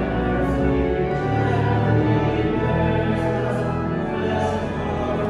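Music with slow, long-held notes.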